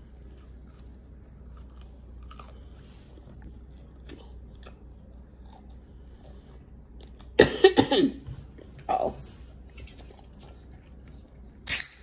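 Close-up chewing and crunching of crispy fried chicken. About seven and a half seconds in there is a loud, short throaty vocal sound, a shorter one a second later, and a sharp bright noise near the end.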